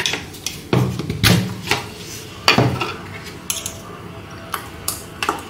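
Utensil clinking and knocking against a mixer-grinder jar as freshly ground green chutney is scooped out: a series of sharp knocks about one a second, some with a short ring after them.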